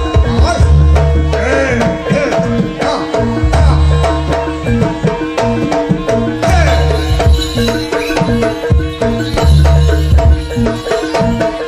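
Live jaranan gamelan music: busy hand-drum (kendang) patterns over held gong and metallophone tones, with a wavering melody above. A deep low stroke comes round about every two and a half seconds.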